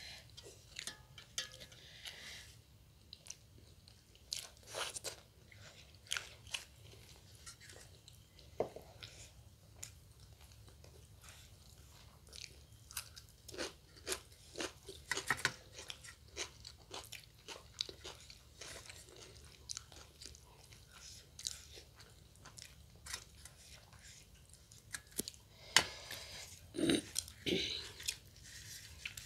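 Two people chewing and biting mouthfuls of sattu puri and baingan chokha close to a table microphone: irregular wet chewing clicks and small crunches, louder near the end.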